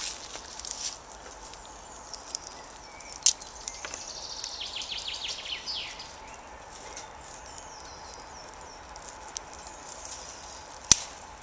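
Woodland ambience: a songbird sings a rapid trill of high repeated notes in the middle, with other faint chirps after it. A few sharp cracks stand out, the loudest near the end.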